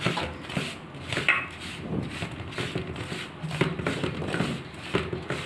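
A hand mixing dry semolina and flour in a steel bowl: irregular rubbing and scraping of fingers through the dry mix against the metal.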